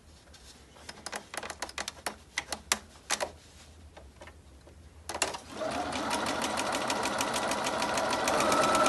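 A few light clicks, then about five seconds in an electric sewing machine starts stitching a seam, running with rapid, even stitch ticks over its motor hum, getting louder and rising slightly in pitch near the end.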